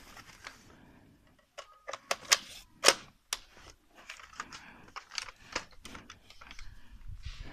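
Irregular sharp clicks and knocks in a small room, the loudest a few seconds in.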